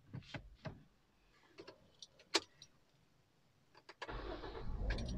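A few light clicks and knocks inside a car's cabin, then about four seconds in the Toyota Corolla Altis's engine starts and runs with a low, steady rumble.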